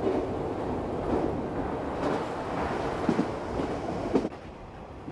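Train running on rails: a steady rumble with occasional clunks of the wheels passing over rail joints. The sound drops to a lower level about four seconds in.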